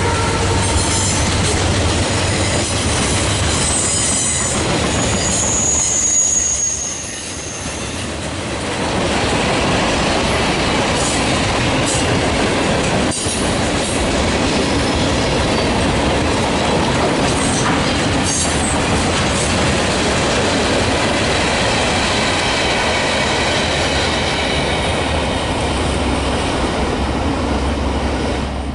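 A train rolling past: a steady loud rumble of wheels and cars on the rails, with a brief high wheel squeal about six seconds in. The last of a horn note dies away right at the start.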